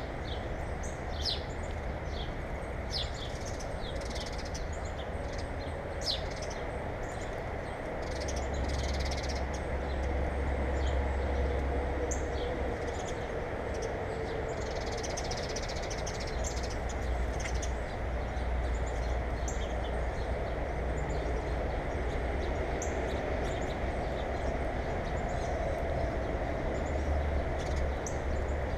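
Small birds chirping in short repeated calls, most often in the first half, over a steady background hiss and a low rumble that grows louder about a third of the way in.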